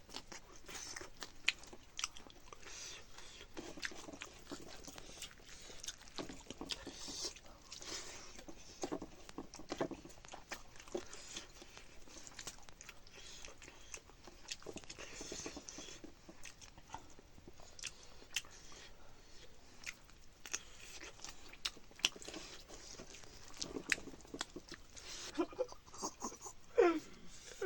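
A person chewing and crunching food close to the microphone, with irregular small clicks and mouth smacks. Near the end comes a short whine.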